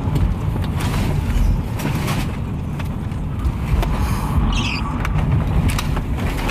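Rumble and buffeting inside a car as it slides off a wet highway and bounces across a rough, snow-patched field, with repeated knocks and rattles from the body.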